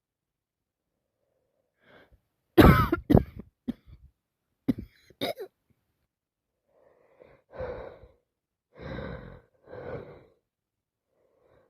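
Coughing from a head cold: a loud fit of coughs about two and a half seconds in, a few shorter coughs after it, then three softer, breathy coughs near the end.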